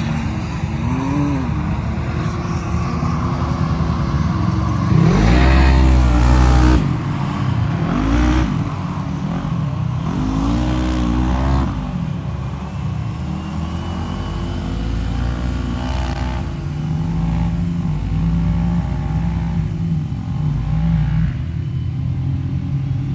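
Off-road vehicle engines revving and passing, their pitch rising and falling several times, loudest about five to seven seconds in.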